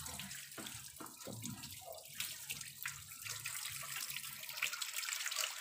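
Water running steadily from a garden hose onto a wet floor, with a few light clicks and scrubbing sounds as a motorcycle's rear mudguard is cleaned by hand.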